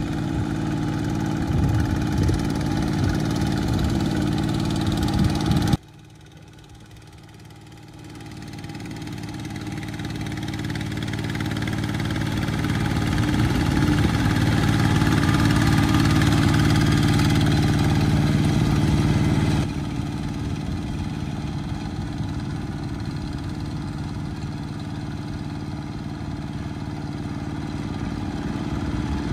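Single-cylinder diesel engine of a two-wheel walking tractor running under load while its steel cage wheels churn through a flooded rice paddy. About six seconds in the sound cuts abruptly to a much quieter level, swells back up over several seconds to its loudest, then drops sharply again about twenty seconds in.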